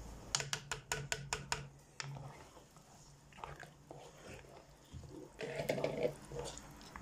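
A spatula working dry fish into thick tomato stew in a granite-coated pot. A quick run of sharp clicks comes in the first second and a half, then soft wet stirring, with a louder stretch near the end.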